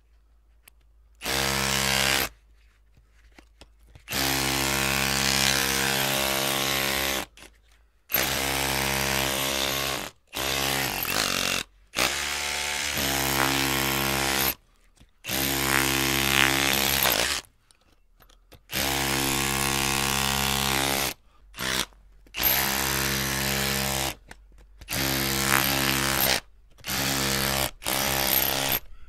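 Electric drill motor running in repeated bursts, its steady whine switched on and off about a dozen times with short pauses between, the pitch sliding down as the motor slows when the trigger is let go.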